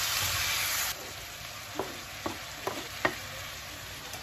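Beef, onion and carrot frying in a pan, sizzling loudly as they are stirred. About a second in the sizzle drops suddenly to a quieter level, and four light knocks follow.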